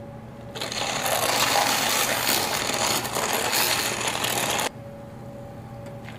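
Battery-powered handheld milk frother whisking greens powder into water in a tall plastic tumbler. It switches on about half a second in, runs for about four seconds and cuts off suddenly.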